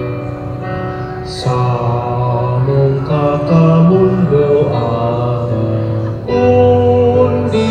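Slow Filipino devotional hymn to the Virgin of Peñafrancia, with voices singing long held notes over instrumental accompaniment.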